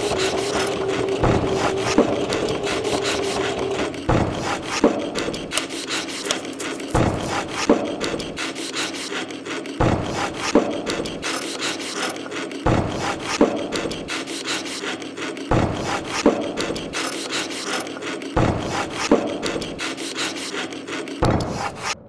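A rhythmic collage of studio work sounds: scraping, rubbing and sawing strokes over an even knock about every second and a half, with a steady hum in the first few seconds. It all stops suddenly at the end.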